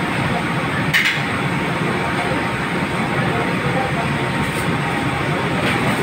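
Steady loud rushing roar of a commercial kitchen's background equipment, such as its wok burners and extraction. A short clink sounds about a second in.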